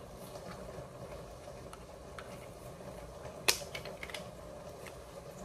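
Plastic clicks and taps from handling a selfie stick and phone holder: one sharp click about three and a half seconds in, a few lighter clicks around it, over a steady low hum.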